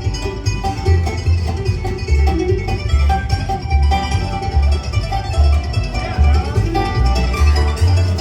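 Band playing an instrumental passage of a country-style song: plucked strings picking over a steady bass beat.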